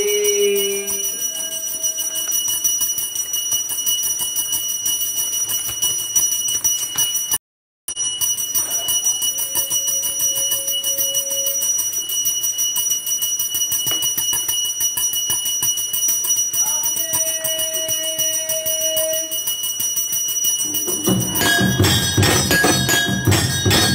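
A bell rung rapidly and continuously for the aarti, a steady metallic ringing. The sound cuts out completely for a moment about seven seconds in. Near the end a louder, fuller clanging joins in.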